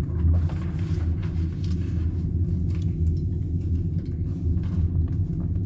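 Steady low rumble with a few faint clicks, and no gunshots.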